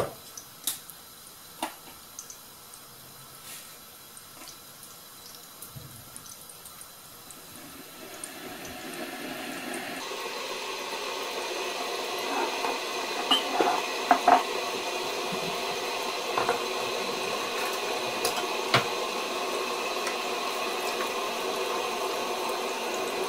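Electric kettle heating water: quiet at first, then a steady rushing rumble that swells over a few seconds about eight seconds in and holds, with a few knocks of a wooden spatula on a frying pan.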